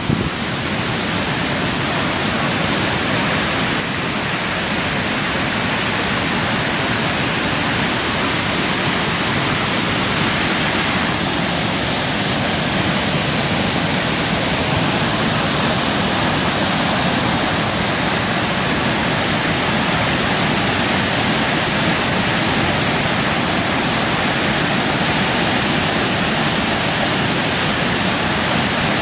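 Waterfall on the Yantic River in flood, swollen by storm rain, pouring over a rock ledge in a loud, steady rush of water.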